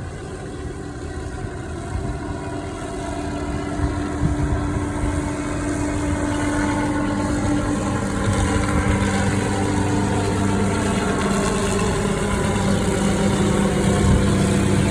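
Helicopter carrying a hanging aerial tree-trimming saw running, growing steadily louder, with a steady low hum coming in about seven seconds in.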